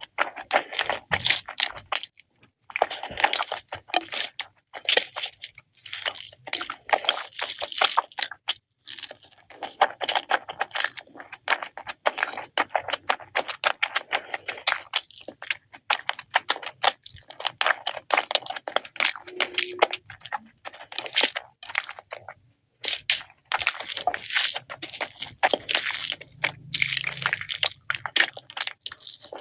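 Close-up eating sounds: a person chewing and crunching food, with irregular crackly bites and mouth noises.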